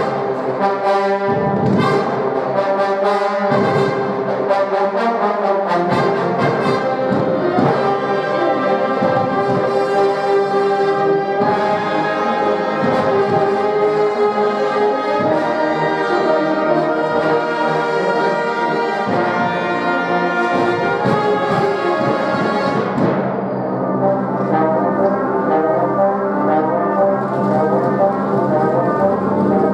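Brass ensemble music: several brass instruments, trombones among them, playing sustained chords and melody together. About three-quarters of the way through, the bright upper edge of the sound drops away and the playing goes on more mellow.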